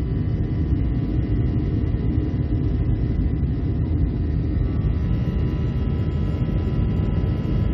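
Steady jet engine and airflow noise inside an airliner cabin at a window seat over the wing: a dense low rumble with faint, even whining tones above it.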